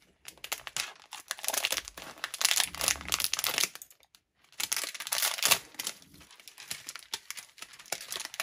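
Foil blind-bag packet crinkling as it is torn open and handled by hand, in bursts with a short pause about halfway through.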